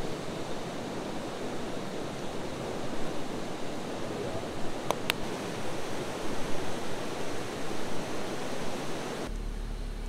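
Whitewater river rapids rushing steadily, with a couple of faint clicks about five seconds in. Near the end the water sound gives way to a low steady hum.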